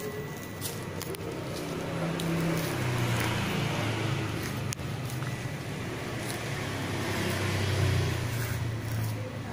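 A motor vehicle engine running close by, its low hum shifting in pitch and swelling in loudness about three seconds in and again near the end.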